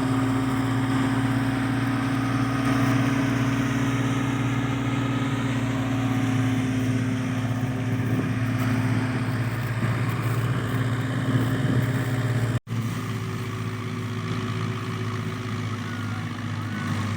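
Wheat thresher machine running steadily with its engine, a constant low mechanical drone with a rough, noisy clatter over it. It drops out for an instant about three-quarters through and then carries on slightly quieter.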